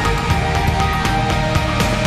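Theme music for a TV programme's opening titles, loud and steady, with a driving beat of about four strokes a second under sustained tones.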